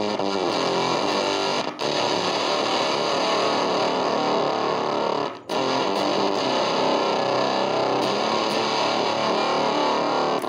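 Electric guitar played through an engaged Fender Blender clone octave-fuzz pedal: a thick, heavily distorted fuzz sound that breaks off briefly twice, about two and five and a half seconds in.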